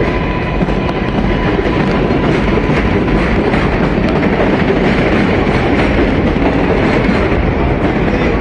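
New York City subway train running on the tracks: a loud, steady rumble and rattle of wheels on rail.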